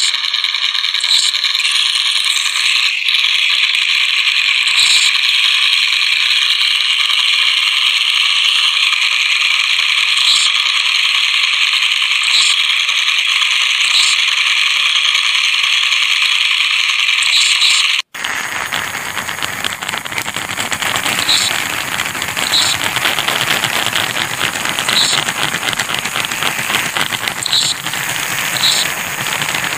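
Harsh steady noise with faint high blips recurring every second or two. It drops out for an instant about 18 seconds in, then returns as a fuller, broader noise that reaches down into the bass.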